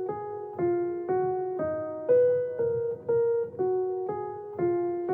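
Background music: a keyboard playing a slow repeating figure of single notes, about two a second, each note fading before the next.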